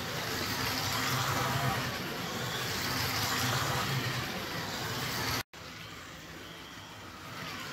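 Scalextric Peugeot 205 and Audi Quattro slot cars racing round the plastic track: their small electric motors whir and their tyres rush over the track in a steady noise. The sound cuts out abruptly about five and a half seconds in and comes back quieter.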